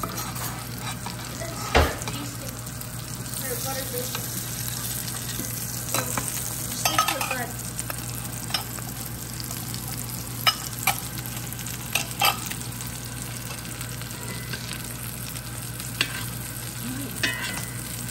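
Swordfish steak sizzling in butter in a cast-iron skillet, with a metal spoon clinking sharply against the pan every few seconds as butter is spooned over the fish.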